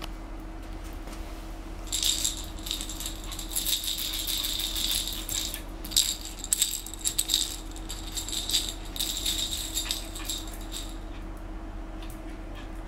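Rattle inside a plush toy shaking in irregular bursts as a puppy bites and tosses it, starting about two seconds in and stopping near the end.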